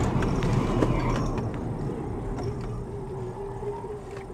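Road and engine noise inside a car's cabin, fading steadily as the car brakes hard from highway speed. A steady tone joins in during the second half.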